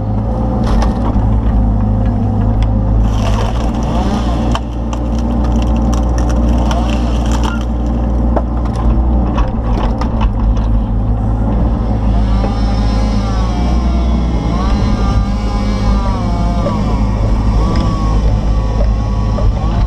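Kubota KX161-3 excavator's diesel engine running steadily under hydraulic load while its homemade wood-splitter attachment busts up firewood rounds, with a run of sharp cracks and snaps of wood splitting through the first half. A wavering higher whine rides over the engine in the second half.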